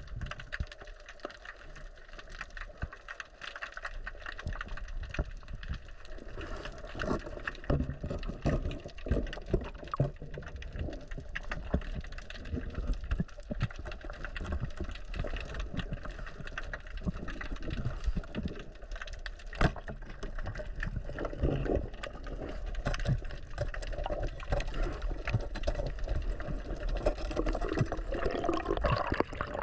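Underwater sound of water moving around the camera, with a low rumble and many irregular sharp clicks and crackles.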